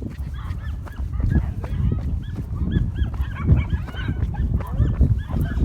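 Dog fight: a dog yelping with rapid, repeated high-pitched cries as it is attacked by several dogs, over low rumbling noise.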